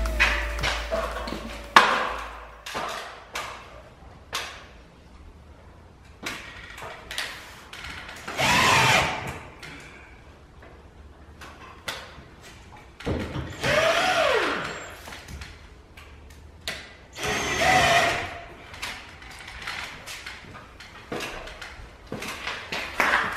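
Handheld drill running in three short bursts several seconds apart, the motor speeding up and slowing down, with clicks and knocks of handling in between.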